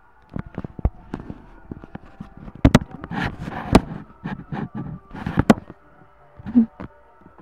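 Handling noise on the recording device's microphone: a rapid string of sharp taps and knocks with rubbing and rustling as the camera is moved and pressed against skin and clothing, busiest in the middle, with a last thud near the end.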